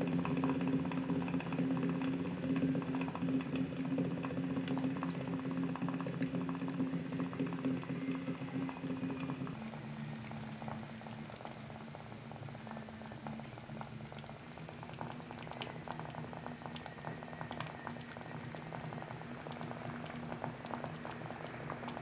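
A glowing-hot metal ball sizzling and bubbling as it cooks into whatever it rests on, with a steady stream of small crackling pops. A steady low hum runs underneath and drops in pitch about ten seconds in.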